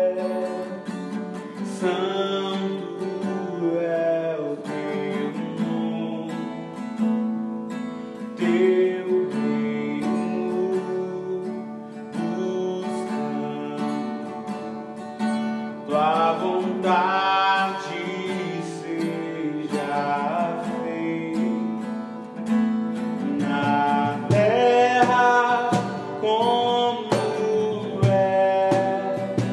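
Worship song: a voice singing a slow melody over acoustic guitar.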